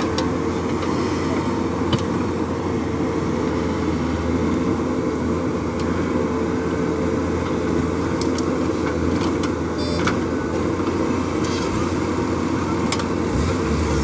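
JCB 3DX backhoe loader's diesel engine running steadily under load while the backhoe swings and dumps soil into a dump truck, with a few scattered sharp clicks. The engine note rises near the end.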